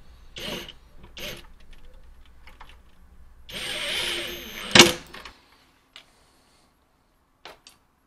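24-volt cordless drill/driver running in two short bursts, then a longer run of just over a second, driving the screw that fastens a ground wire to the refrigerator's sheet-metal housing; the run ends in a sharp click. A few faint clicks follow.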